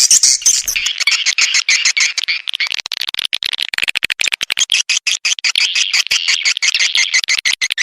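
Swiftlet lure call: a dense, unbroken twittering of rapid high chirps and clicks, many a second, the playback used to draw swiftlets into a nesting house.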